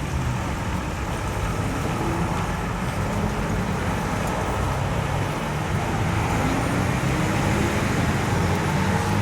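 Road traffic on a main road: vehicles passing one after another, with a steady low engine rumble and road noise.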